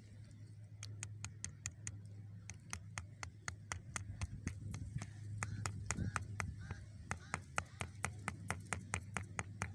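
A stone used as a hammer tapping a nail in, about four sharp taps a second, starting about a second in.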